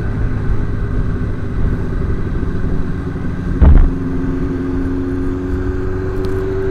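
Suzuki Bandit 600's inline-four engine running steadily under way, over rushing wind and road noise. A brief loud thump comes a little past halfway, and the engine note rises slightly near the end.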